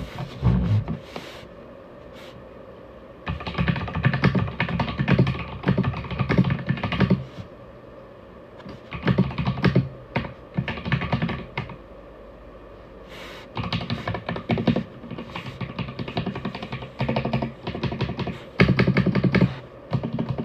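Aigo Darkflash GD100 mechanical keyboard being typed on in fast runs of keystrokes, with short pauses between the runs.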